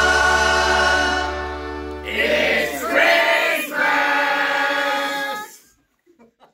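Choral music: voices hold a chord over a low sustained bass, then sing a short final phrase ending on a long chord that stops about five and a half seconds in.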